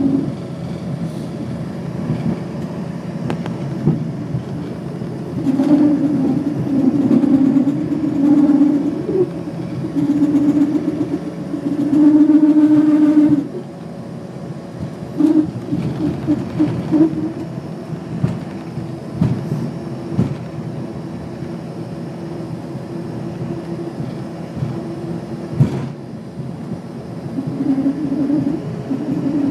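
Jet cabin noise as the airliner rolls on the ground after landing: engines running and the wheels rumbling on the pavement, with a low drone that comes and goes and is loudest about halfway through.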